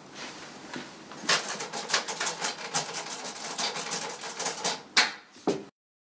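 Typing on a typewriter: quick, irregular runs of key strikes starting about a second in, with two louder strikes near the end before the sound cuts off suddenly.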